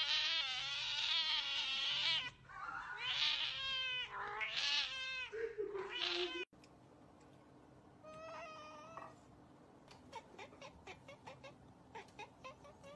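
Cats meowing: a long, loud, wavering yowl, then three shorter meows, the last sliding down low. It cuts off suddenly and gives way to a fainter single meow, followed by a run of short faint ticks.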